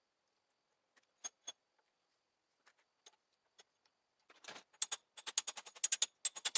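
A few scattered light metallic clicks, then from about four and a half seconds in a rapid run of sharp metallic clicks, about ten a second, each with a bright ring.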